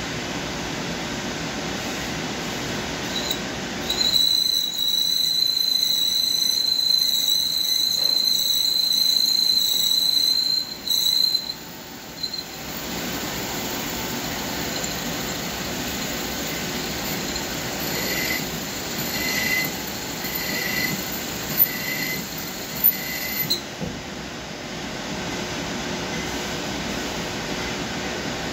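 CNC lathe cutting a groove in a spinning metal part with a grooving insert, over the steady running of the machine. About four seconds in, the cut gives a loud, steady high-pitched squeal that lasts about seven seconds and stops abruptly. Later comes a run of about five short, high chirps roughly a second apart.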